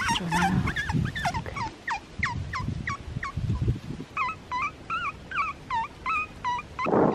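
An animal calling in a rapid series of short, pitched calls, about three a second, each with a hooked or curling shape; near the end a sudden rush of noise like wind on the microphone takes over.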